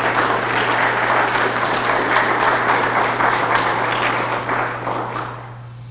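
Small audience applauding, steady and then dying away near the end.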